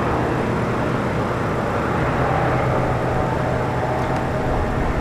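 Sports car engine and exhaust running at a steady, unchanging pitch, with no revving or gear changes.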